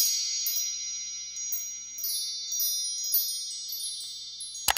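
Wind-chime sound effect: many high, bright notes tinkling and ringing on over one another, slowly fading. A single sharp click sounds near the end.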